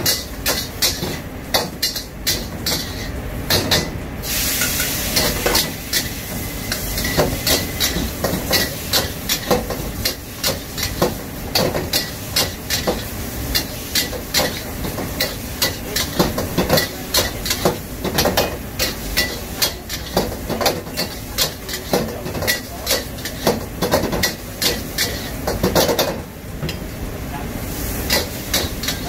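A metal ladle scraping and knocking against a wok a few times a second as food is stir-fried over a high gas flame, with sizzling throughout. The hiss swells about four seconds in and again near the end.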